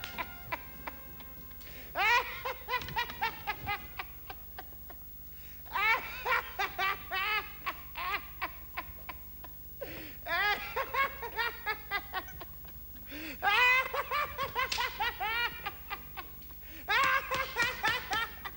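A man laughing in about five separate bouts, each a quick run of pitched 'ha' pulses, with quieter gaps between them.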